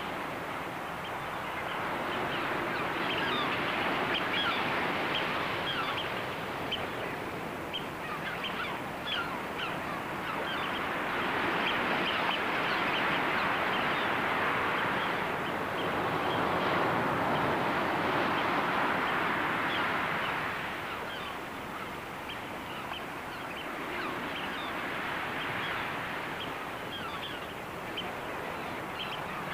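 Surf washing ashore, swelling and falling back every few seconds, under a constant chatter of many short bird calls from a flock.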